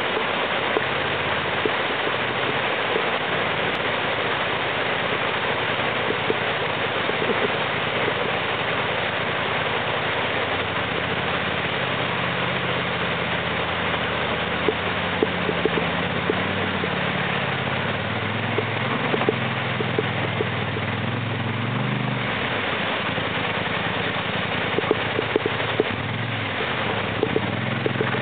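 Creek water rushing over rocks, with a Polaris 850 Touring ATV's engine coming in about a third of the way through, rising and falling with the throttle as it crawls through the creek. Scattered knocks sound in the second half.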